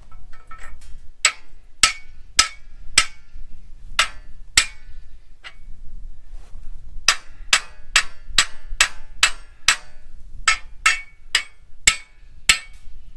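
Hammer striking the metal frame of a scrap rabbit-cage table, sharp ringing blows about two a second in two runs with a short pause between, knocking a stuck part loose.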